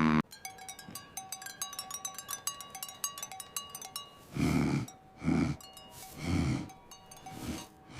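Light plinking bell-like notes for about four seconds, then four short vocal sounds about a second apart.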